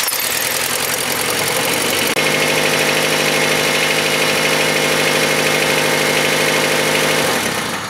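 1998 Honda Civic's four-cylinder engine idling just after being started, following a spark plug thread repair. The note steadies about two seconds in and fades away near the end.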